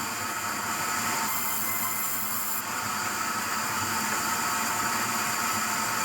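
Sawmill saw blade running through a log with a steady metallic whine over a hiss of cutting, the hiss brightening briefly about a second in.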